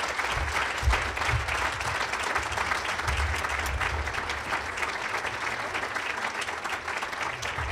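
Audience applauding at a steady level, many hands clapping together.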